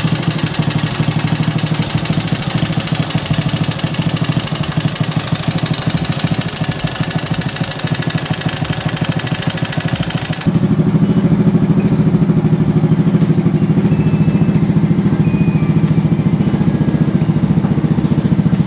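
Single-cylinder four-stroke engine of an old Honda Supra X motorcycle idling rough and clattery, a noise the mechanic puts down to the engine having once run dry of oil. About ten seconds in it cuts to the same engine idling after repair, a steadier, deeper running with the high clatter gone.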